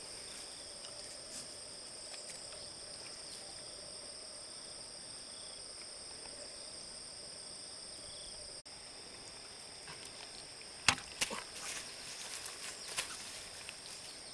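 Insects trilling steadily, a high continuous chorus. In the second half come several sharp clicks and knocks, the first of them the loudest.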